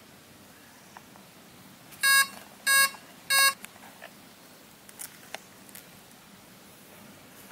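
Three short electronic beeps about half a second apart from the RC plane's electronic speed controller, the arming beeps given when the flight battery is connected, followed by a few faint handling clicks.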